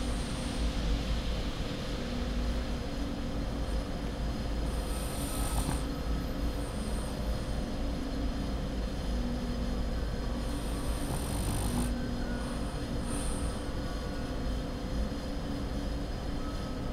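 French bulldog snoring in its sleep: continuous rasping breathing with a high wheezy hiss that returns every few seconds, over a steady low hum.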